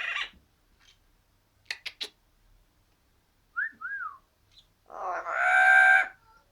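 Yellow-crowned amazon parrot making a string of noises. About 2 s in come three quick clicks, near 4 s two short whistles that rise and fall, and about 5 s in a long, loud drawn-out call.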